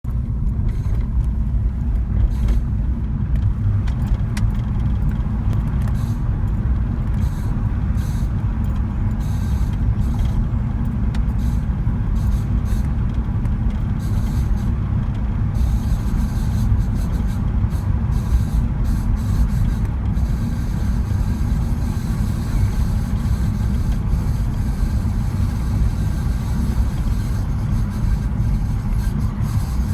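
Steady low rumble of a vehicle in motion, with a scraping noise from the rear wheel whose cause the owner does not know.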